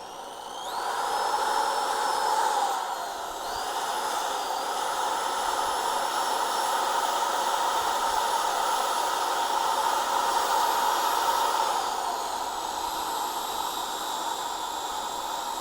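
Power tool with a wire wheel spinning up and scouring a freshly cast copper bar clean. Its whine rises at the start, dips and climbs again about three seconds in, and winds down near the end, over a steady scratching hiss of wire on metal.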